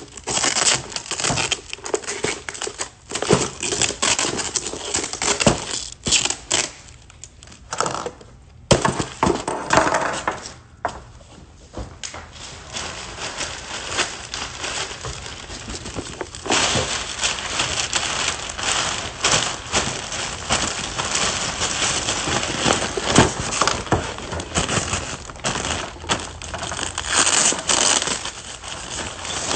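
Black plastic garbage bag rustling and crinkling as it is handled and stuffed. The rustle comes in irregular bursts with short pauses, then runs almost continuously through the second half.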